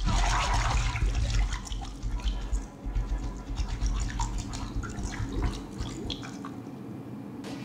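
Water draining out of a filled sink after the plug is pulled, a crisp run of little clicks and pops as it goes down the drain. Loudest at the start, it gradually fades.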